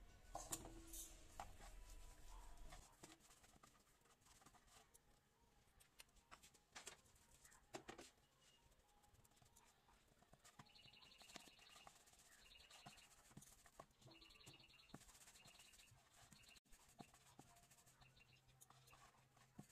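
Near silence, with scattered faint taps and knocks of fenugreek-leaf paratha dough being pressed and rolled out on a wooden board. Around the middle come several short runs of faint high chirps.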